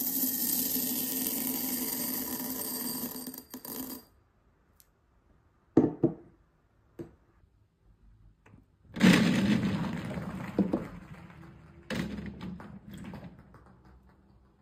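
Small plastic beads pouring into a glass with a dense, steady rattle that stops abruptly about four seconds in. After a short pause and a few single clicks, a mass of beads clatters onto a glass plate about nine seconds in, fading into scattered ticks, with a second smaller spill near twelve seconds.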